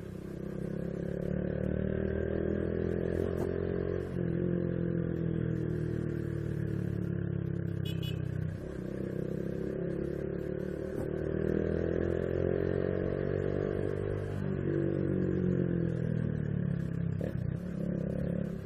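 Honda Biz 125 motorcycle engine pulling under way, its pitch climbing over several seconds and then dropping back, three times over.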